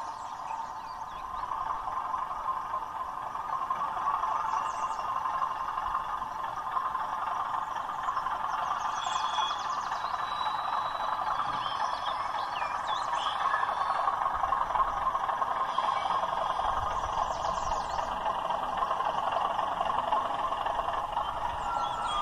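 Diesel engine sound from a OO gauge Class 37 model locomotive's DCC sound decoder, played through its small on-board speaker. It runs steadily and grows louder over the first few seconds as the loco shunts tank wagons.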